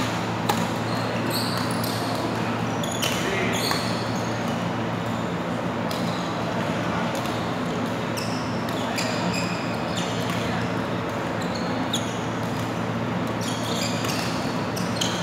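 Badminton rallies: rackets striking shuttlecocks with sharp clicks at irregular intervals, and shoes squeaking briefly on the court floor, over a steady low hum.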